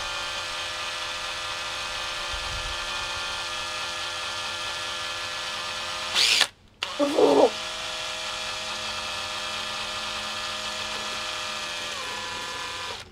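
Makita cordless drill running steadily with an ear of corn spinning on its bit, a constant motor whine. About six seconds in it stops for a moment and starts again with a short louder noise, and it cuts off near the end.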